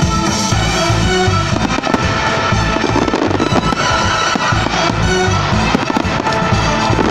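Fireworks display bursting and crackling over loud music played with the show: a dense run of rapid bangs and crackles, growing thicker from about two seconds in.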